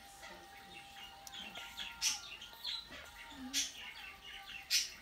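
Felt-tip pen squeaking and scratching on notebook paper while letters are handwritten: a run of short strokes, the loudest about two seconds, three and a half seconds and near five seconds in.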